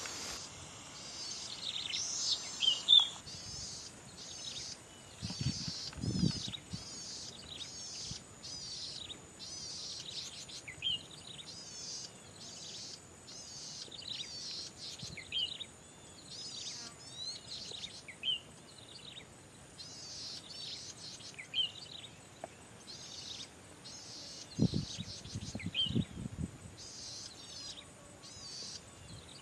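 Golden-headed cisticola singing: repeated buzzy high notes broken every couple of seconds by a short clear note. A steady high hiss runs behind, and there are a few low thumps about six seconds in and again near the end.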